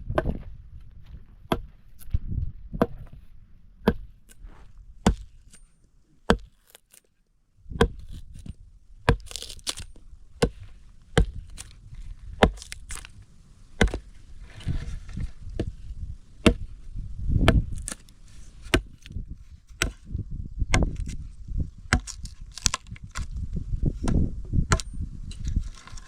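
Repeated sharp blows of a tool striking wood, about one a second at first, then a short pause about six seconds in, then faster, roughly two blows a second.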